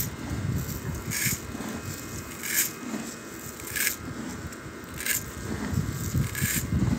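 Dry grain rattling and scraping against a stainless steel bowl as it is shaken or stirred, in short even strokes about every second and a quarter.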